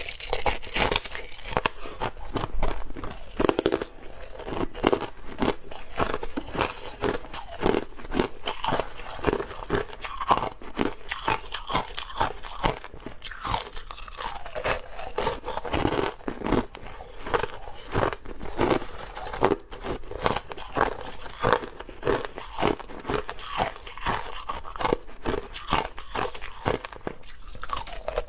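Hard, clear crushed ice being bitten and chewed: rapid, irregular crunching and cracking that goes on without a break.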